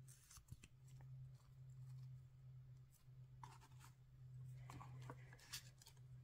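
Faint handling of makeup packaging: small clicks as a plastic mascara tube is capped and set down, then scratchy rustles as items on the table are touched, most of them about four to five seconds in, over a steady low hum.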